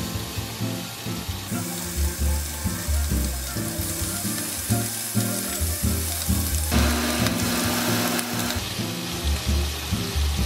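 Bacon strips sizzling and frying in hot fat in a pan, with a steady crackling hiss. A lo-fi beat with bass notes plays underneath.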